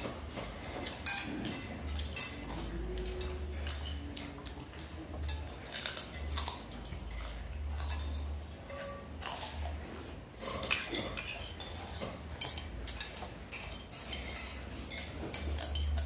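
Spoons clinking and scraping against plates and bowls as several people eat, in short irregular clicks.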